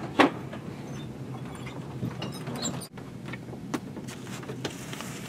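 Hardbound journal volumes being handled on library shelves: a sharp knock just after the start, then scattered light taps and scrapes. A steady low hum runs underneath.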